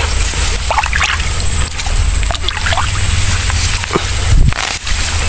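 Wading through shallow muddy water among reeds: water sloshing around the legs over a heavy low rumble on the microphone, briefly louder about four and a half seconds in.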